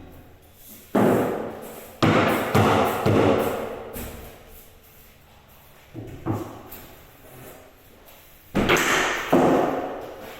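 A series of heavy thumps and bangs, about eight in all, some coming in quick pairs, each dying away over a second or so.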